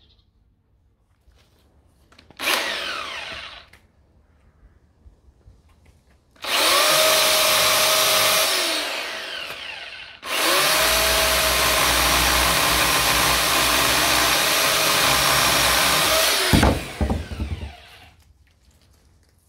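Parkside 1400W electric chainsaw motor and chain running in bursts as the trigger is pulled: a short blip about two seconds in, a run of a few seconds that winds down, then a longer steady run of about six seconds. It is released near the end, its pitch falling as the chain coasts to a stop.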